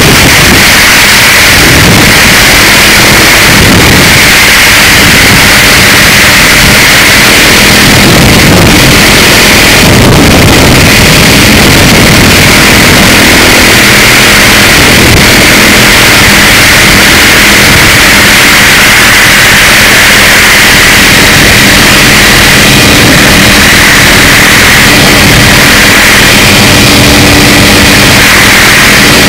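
Helicopter engine and rotor noise heard on board: loud and steady, a dense rushing noise with a constant hum under it.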